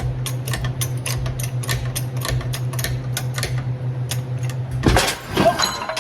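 Rapid mechanical clicking over a steady hum, then about five seconds in a loud metal crash and clatter as a seized part of a Bridgeport milling machine, forced with a hydraulic jack, suddenly lets loose.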